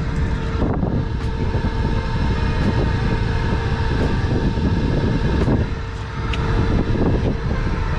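Inside the cabin of a Volkswagen Mk7 Golf GTI, a steady rumble of engine and road noise as the car pulls slowly into a parking space, with a few scattered clicks.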